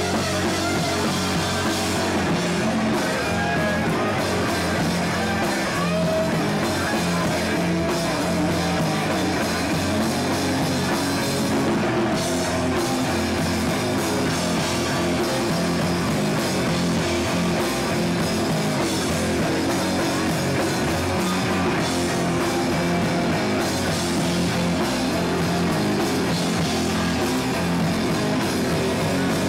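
Hardcore punk band playing live: electric guitar, bass and drums at a steady, loud level with no break.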